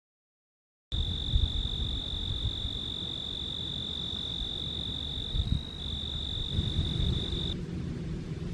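An insect trilling: one steady, high-pitched trill that starts about a second in, falters briefly, and stops near the end. Low rumbling wind or handling noise sits underneath.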